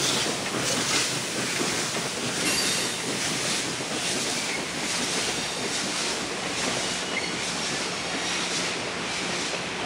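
Passenger coaches rolling by on a curve: a steady noise of steel wheels running on the rails, with brief faint wheel squeals now and then.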